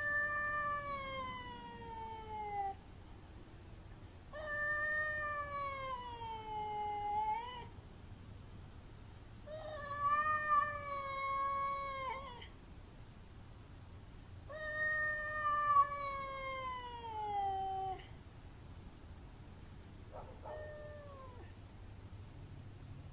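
Domestic cat caterwauling: four long, drawn-out yowls of about three seconds each, falling and wavering in pitch, a couple of seconds apart, then a short fainter one near the end. This is the territorial yowling of a cat squaring off for a fight.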